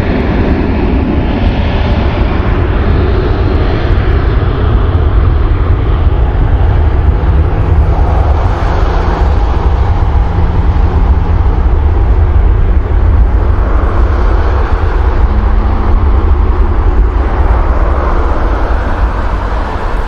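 Jet airliner engines, a loud steady rumble with a rushing noise over it and a faint hum of engine tones.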